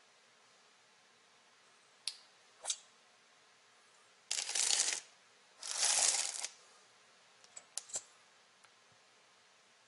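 Plastic jars and a plastic flip-cap syrup bottle handled on a kitchen counter: a few light clicks and knocks, and two short scraping rustles in the middle, which are the loudest sounds.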